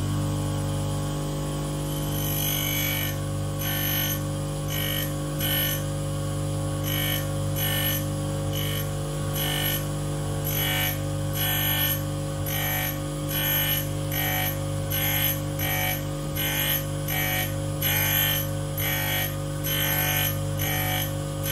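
Tool and cutter grinder running with a steady motor hum while the end of an endmill is ground flat against the wheel. From about two seconds in, a short, high grinding hiss repeats a little over once a second as the endmill's end is worked against the wheel.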